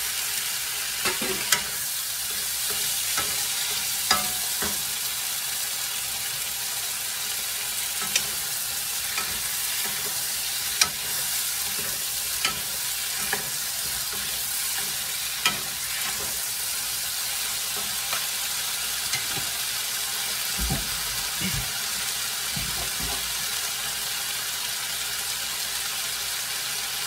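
Raw shell-on shrimp sizzling steadily in hot oil in a nonstick pan with onions and tomato, stirred with a wooden spatula that clacks against the pan every second or few.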